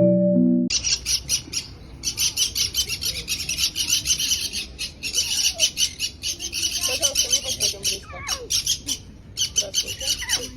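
Small birds chirping rapidly, a dense run of short high-pitched chirps with brief breaks, starting suddenly under a second in as a short music phrase cuts off.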